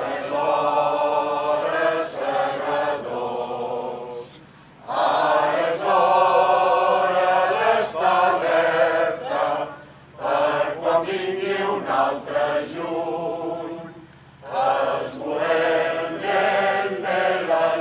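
A group of people singing together in long phrases, with short breaths between phrases.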